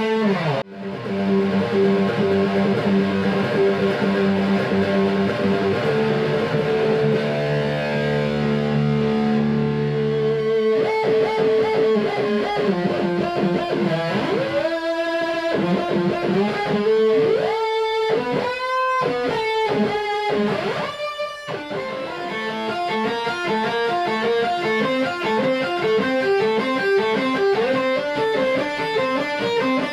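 Electric guitar played through a Diezel VH4-2 distortion pedal on its second channel, with the dip switch on. It plays held distorted chords for about ten seconds, then a passage of sliding, bending notes, then a fast repeating riff, heard through a phone's microphone.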